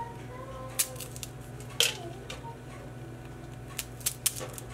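Crisp palm-jaggery-coated popped lotus seeds (makhana) cracking as a serrated knife cuts through them: a sharp crunch about a second in and another near two seconds, then a quick run of smaller crunches near the end. The clean crack shows the coated seeds have cooled to full crispness.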